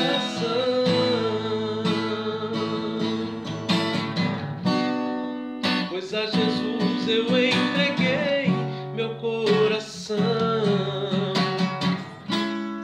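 A man singing a Portuguese worship song while strumming chords on an acoustic guitar.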